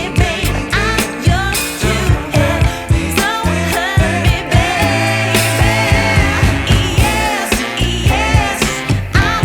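Pop song with a singer's voice over a steady drum beat and bass.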